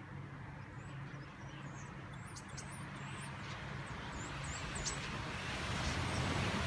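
A flock of starlings calling with short, high whistled chirps over a steady low hum of traffic; the background rush grows louder near the end.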